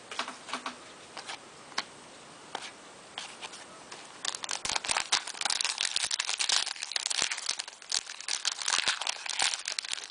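Hockey card pack wrapper being torn open and crinkled by hand: a few separate handling clicks at first, then dense crinkling from about four seconds in.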